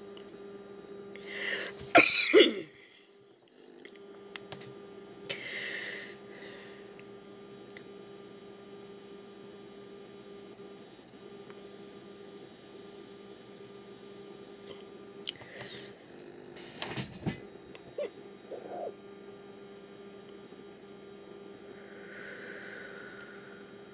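A steady low hum, broken about two seconds in by a man's loud, short cough-like burst. A few sharp clicks follow around sixteen to seventeen seconds, and there is a soft breathy exhale near the end.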